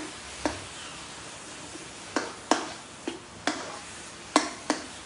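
Metal spatula stirring food in a non-stick wok, striking the pan with about eight sharp clinks at uneven intervals, most of them in the second half.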